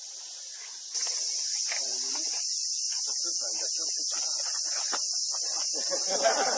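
A steady, high-pitched chorus of summer insects that gets louder about a second in, with faint murmuring voices beneath.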